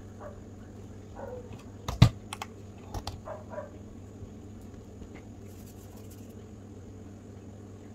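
A few sharp clicks and knocks about two to three seconds in, the loudest first, as a stainless-steel digital kitchen scale is set down on the silicone mat. A steady low hum runs underneath.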